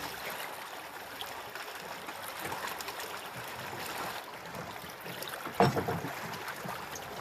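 Small waves washing and splashing against shore rocks and a small open boat's hull, with one sharp knock about five and a half seconds in.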